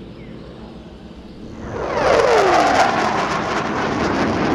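Light aircraft passing low overhead. It comes up quickly about a second and a half in, its engine tone dropping sharply in pitch as it goes by, and then stays loud.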